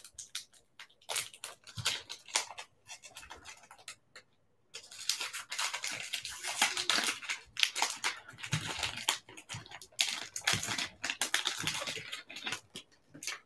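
Plastic trading-card pack wrapper crinkling and tearing as it is pulled open by hand, in irregular crackling bursts with a brief pause about four seconds in.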